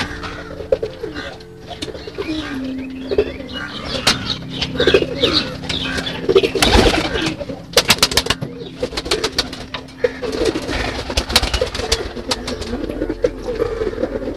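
Domestic pigeons cooing in a loft, with many sharp taps from birds pecking at feed on the floor and a flutter of wings about seven seconds in.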